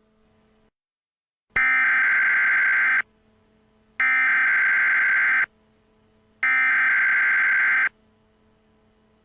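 Emergency Alert System header: three identical bursts of shrill warbling digital data tones, each about a second and a half long with about a second between them, marking the start of a new alert message.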